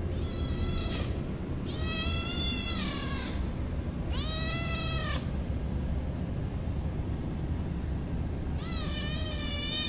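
Kitten meowing for food: four drawn-out meows, each rising then falling in pitch, the first faint and the last running on past the end. A steady low rumble underneath.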